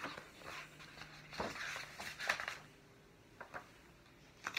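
Paper pages of a picture book rustling and scraping in short bursts as the book is handled and a page is turned, with a brief sharp click near the end.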